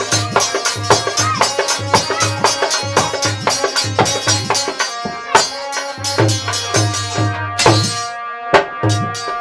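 Instrumental interlude of a folk bhajan: a dholak plays a brisk, even rhythm of deep and sharp strokes under held chords on a harmonium.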